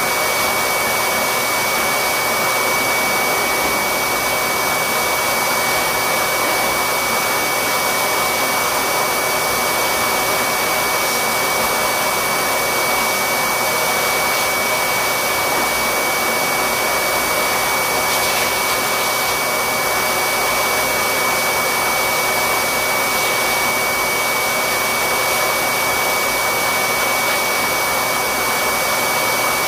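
Pet grooming blower dryer running steadily: a constant rush of air with a high, unchanging motor whine.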